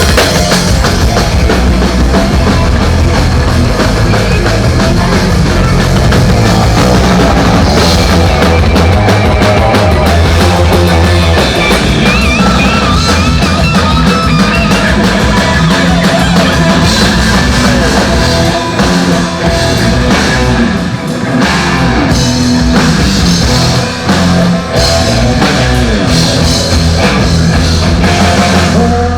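Rock band playing an instrumental passage at full volume: drum kit, bass and electric guitar, with a wavering lead line partway through.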